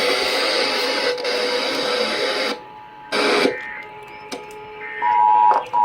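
A harsh, noisy broadcast signal that cuts off after about two and a half seconds. About five seconds in, the steady two-tone Emergency Alert System attention signal starts, a pair of close tones a little under 1,000 Hz, announcing the monthly EAS test.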